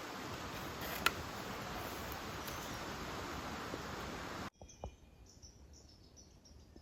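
Steady rain with one sharp tick about a second in. Then a sudden cut, about four and a half seconds in, to near quiet with faint, short, high chirps repeating.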